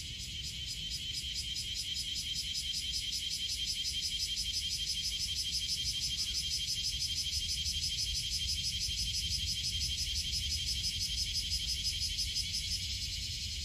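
An insect calling in a fast, even, high-pitched pulsing trill that grows louder after about a second and stops near the end, with a low rumble underneath.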